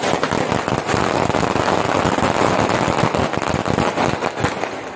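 Firecrackers going off in a rapid, unbroken string of pops.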